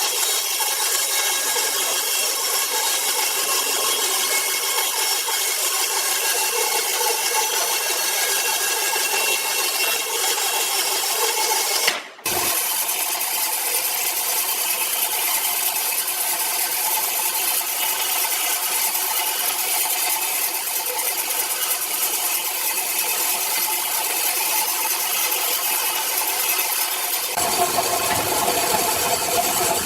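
Power saw cutting through wood, a steady, continuous machine sound with a high ringing tone. It breaks off for a moment about twelve seconds in, and near the end the sound becomes fuller and deeper.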